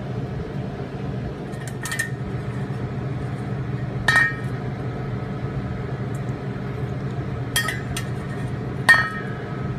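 A metal spoon clinking against a stainless steel mixing bowl of lemon juice, four separate ringing clinks with the last the loudest. A steady low hum runs underneath.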